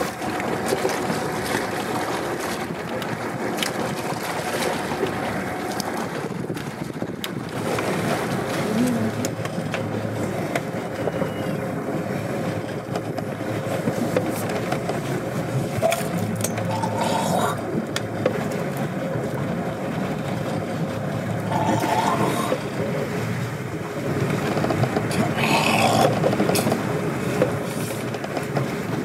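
Escort boat's engine running steadily, under a haze of wind and water noise.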